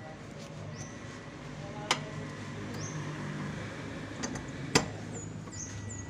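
A low steady motor hum, with two sharp knocks about three seconds apart, the second the louder, and a few short high chirps scattered through.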